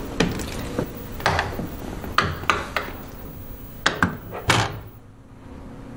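An apartment door being shut and locked from inside: a series of sharp clicks and knocks from the door, latch and lock over about four to five seconds.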